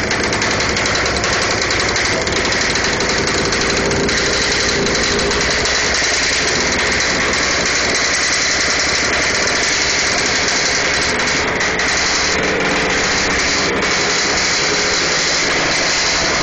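Yamaha RX-King two-stroke single-cylinder engine running loud and steady through an aftermarket 2R exhaust.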